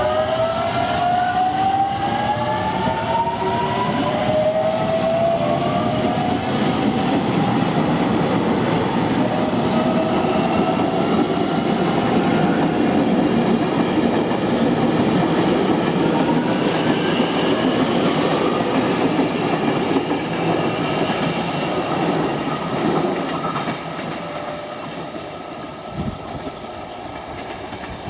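JR Kyushu 813 series electric train pulling away and gathering speed: its motors give a whine that climbs in pitch over the first ten seconds or so, over a rumble with wheels clicking on the rails. The sound gets noticeably quieter near the end.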